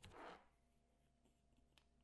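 Near silence: room tone with a brief faint rustle at the start and a couple of faint clicks.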